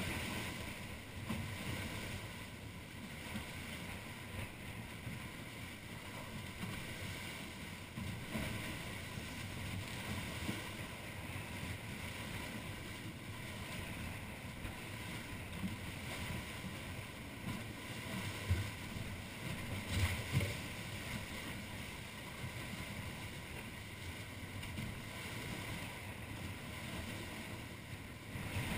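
Wind buffeting the camera's microphone and water rushing and slapping along the hulls of a Wharram Tiki 38 sailing catamaran under way in choppy sea. A few louder thumps come about two-thirds of the way through.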